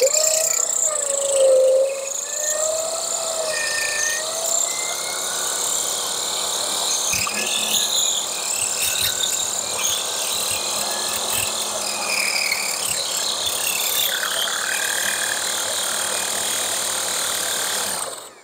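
Electric drill turning a diamond-tipped hole saw into the base of a fired clay pot: a steady grinding with the motor's whine wavering under load in the first few seconds, the bit still partway through the clay. It stops suddenly near the end.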